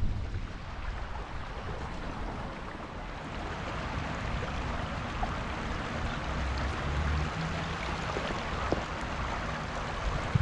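Steady rushing of a shallow river flowing past.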